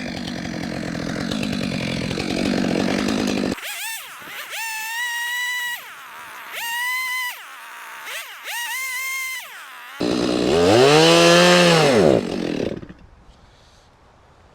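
Gas chainsaw cutting firewood, then revving three times on and off, then surging once more and falling away until the engine dies near the end: the saw is running out of fuel.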